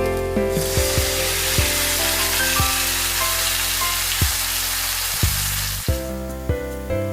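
Food sizzling in a hot frying pan, a dense hiss that starts abruptly about half a second in and cuts off about six seconds in, over steady background music.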